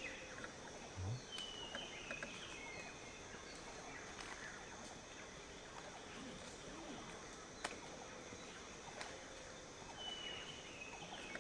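Faint outdoor ambience with a few short bird chirps, some falling slightly in pitch, near the start and again near the end, and scattered faint clicks.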